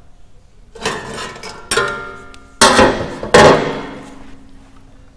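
Steel parts clanking: four sharp metal knocks, the last two the loudest, each followed by a ringing tone that fades away.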